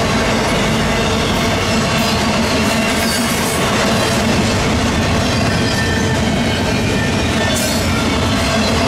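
A Norfolk Southern intermodal freight train's container and trailer cars rolling past at close range: a steady, loud rumble of steel wheels on rail.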